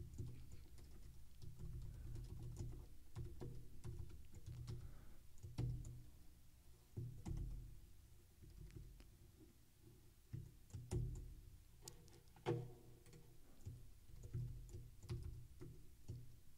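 Computer keyboard typing: irregular single keystroke clicks, a few of them sharper, over faint low background music.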